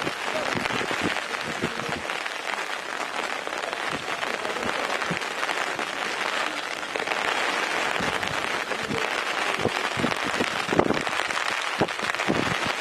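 Steady rain falling, a dense even hiss of many small drops, with a few short low knocks near the end.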